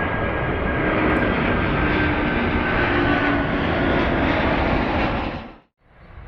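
Jet airliner engines running loud close by, a dense roar with a high whine that slowly falls in pitch. The sound cuts off abruptly about five and a half seconds in, and a much quieter sound follows.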